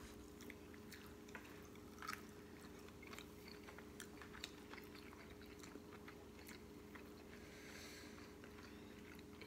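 Faint sounds of eating: chewing and scattered small clicks of a fork on food and plate, over a steady low hum in the room.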